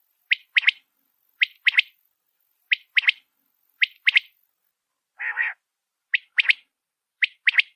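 A male quail's (Coturnix) calling song to draw a female: a sharp three-note phrase, one short note followed by two close together, repeated about once a second. One rougher, lower call sounds once about two-thirds of the way through.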